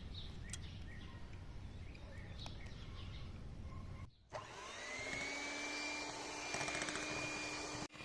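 Outdoor ambience with a few short bird chirps, then, after a brief break, a small electric motor starts up, its whine rising quickly in pitch and then holding steady, typical of an electric hand mixer beating cake batter.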